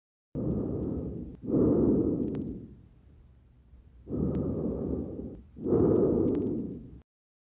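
Simulated pneumonia lung sounds as heard through a stethoscope: two full breaths, each a softer inhalation followed by a louder exhalation. A few brief sharp clicks sit in the breaths, and the sound starts and stops abruptly.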